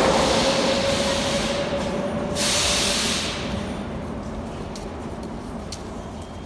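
Metro train pulling away from the platform, its steady whine and rumble fading as it leaves. A loud burst of air hissing comes about two and a half seconds in.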